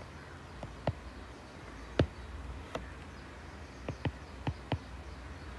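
Stylus tip tapping on a tablet's touchscreen while handwriting: about eight sharp, irregular ticks, the loudest about two seconds in, over a low steady hum.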